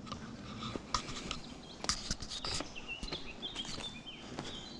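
Footsteps on an outdoor path, with short high whistled bird calls coming in about three seconds in.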